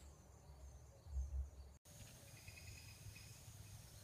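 A soft low bump about a second in. After it, faint background of insects trilling, with a bird briefly chirping.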